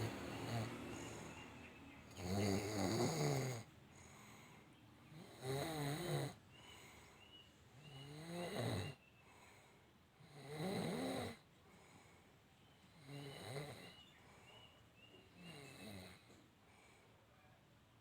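A person snoring in deep sleep: six loud snores about two and a half seconds apart, each a rough rattle with a wavering pitch.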